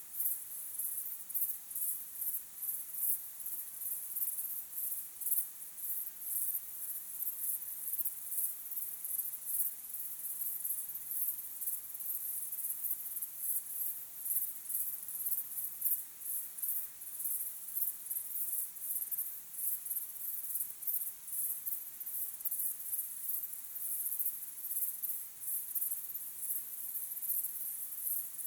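A chorus of crickets chirping, a dense, steady, high-pitched trill made of many rapid pulses overlapping.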